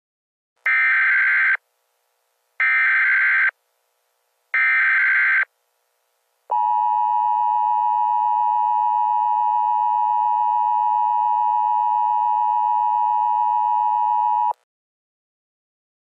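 Emergency Alert System SAME header: three one-second bursts of data tones about a second apart, followed by the EAS attention signal, a steady two-tone alarm held for about eight seconds that cuts off suddenly. It announces a flash flood warning.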